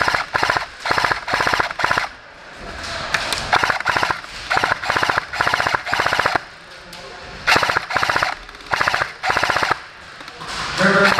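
Airsoft M249 light machine gun, an electric gearbox gun, firing many short full-auto bursts in rapid succession, with short pauses about two seconds in and again around seven and ten seconds in.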